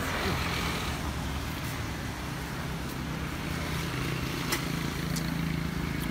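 Street traffic: a motor vehicle engine running steadily close by, with a broad rush of a passing vehicle near the start and a few light clicks.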